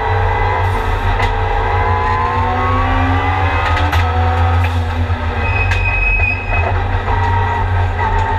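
Turbocharged four-cylinder engine of a Mitsubishi Lancer Evolution time-attack race car under hard acceleration, heard from inside the stripped cabin: the revs climb for a few seconds, break and drop about four seconds in as it shifts or lifts, then dip and climb again near the end, over a steady low rumble of road and wind noise.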